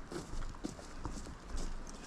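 Footsteps on the woodland floor: a run of irregular steps and light knocks from someone walking.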